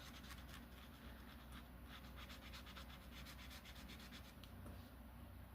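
Faint, quick scratching strokes on paper, several a second: colouring a page by hand.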